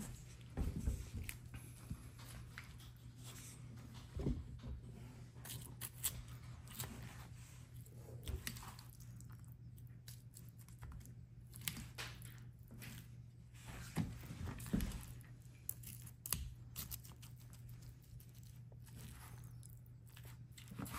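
A spoon stirring and mashing moist dog food in a stainless steel bowl, with irregular clinks and scrapes of the spoon against the metal, over a steady low hum.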